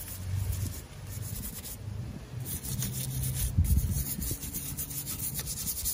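Hand scrubbing on a Honda B-series transmission case to strip grease buildup: rapid rubbing strokes, with a few dull knocks.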